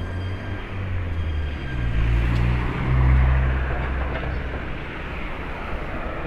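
Cars driving past on a street: engine hum and tyre noise swell to a peak about three seconds in, then ease off.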